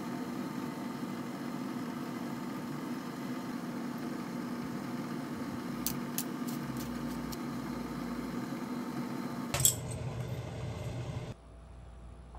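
Steady low kitchen hum with light clinks of a spatula and frying pan against a ceramic plate, a few quick clicks about six seconds in and a sharp knock near the end, then the hum cuts off abruptly to quiet room tone.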